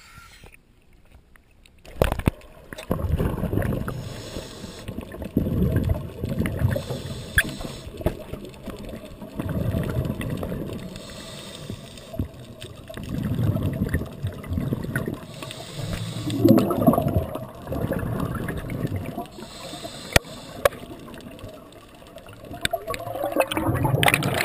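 Scuba diver breathing through a regulator underwater, starting about two seconds in. A short hiss on each inhale alternates with a longer rush of exhaled bubbles, repeating every three to four seconds.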